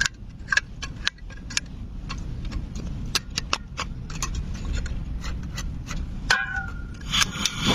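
Irregular sharp clicks and taps, several a second, over a steady low rumble; about seven seconds in, a louder, even hiss starts.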